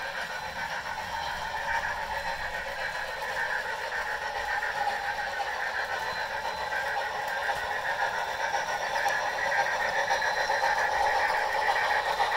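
Sound decoders of two DCC model steam locomotives, a Bachmann GS4 and a Bachmann Niagara, playing steam running sounds through their small speakers, with the wheels rolling on the track. It grows louder near the end as the GS4 runs close by.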